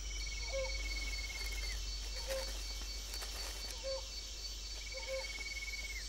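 Tropical rainforest ambience: a steady high insect drone, a trilling note held for over a second twice, and a short low call repeated about every second and a half.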